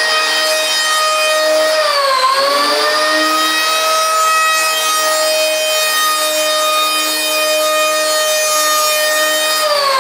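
Accurate electric surfboard planer's motor running at high speed with a steady high-pitched whine. About two seconds in the pitch dips briefly and recovers, and near the end it falls steadily as the motor spins down.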